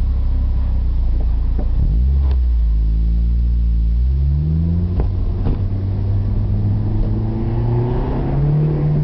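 2006 Acura RSX Type-S four-cylinder engine heard through an aftermarket PowerGetter exhaust, its note low and steady at first, then rising in pitch in steps about two and four seconds in and climbing further before falling away at the end.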